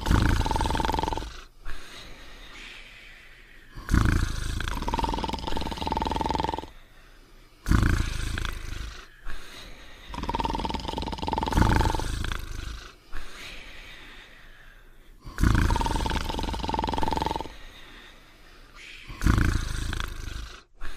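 Cartoon dog snoring: a loud rough snore repeated about every four seconds, each with a steady whistling tone lasting about a second, followed by a quieter breath.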